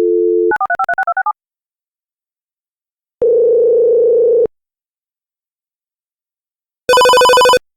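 A telephone call being placed. A dial tone cuts off into a quick run of about eight touch-tone keypad beeps, then a ringing tone sounds once for just over a second. A shorter, buzzier tone follows near the end.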